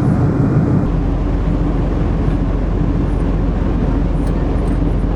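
Steady rumble of a ferry's engines under way, with a constant low hum and a rushing noise over it; the sound shifts abruptly about a second in.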